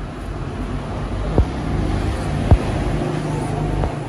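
Steady low rumble of motor-vehicle traffic, slowly growing louder, with three short knocks; the loudest comes about two and a half seconds in.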